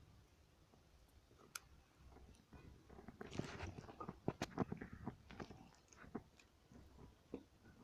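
Slime squeezed and poked by hand, making faint wet clicks and pops that come thickest in the middle.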